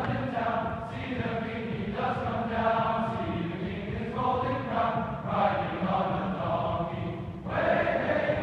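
Large choir singing together in phrases, with short breaks between them.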